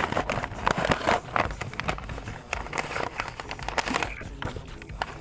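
Packaging being handled and opened: irregular crinkling and rustling of paper and plastic wrapping.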